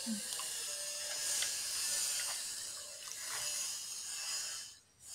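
Eating at a table: chewing, with a few light clicks of a spoon and fork against a plate, over a steady hiss that cuts off suddenly near the end.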